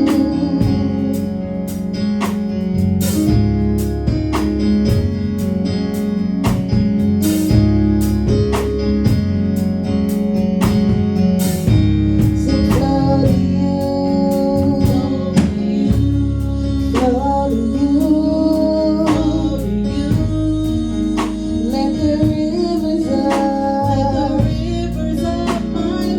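Live worship band playing between sung lines of a worship song: held keyboard chords, guitar and bass over a steady drum beat, with some singing.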